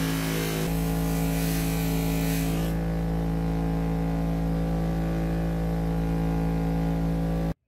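Bench grinder motor running steadily with a hum, the steel razor blade pressed against the spinning wheel for the first few seconds with a grinding hiss. The blade then comes off the wheel, leaving the motor hum, and the sound cuts off suddenly near the end.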